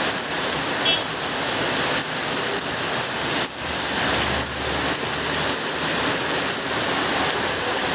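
Heavy tropical rain pouring onto a wet paved road, a dense steady hiss. A car drives past through the wet about halfway through.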